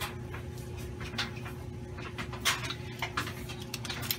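Small hand-cranked sewing machine stitching in reverse through thick fabric, with scattered mechanical clicks and knocks over a low steady hum.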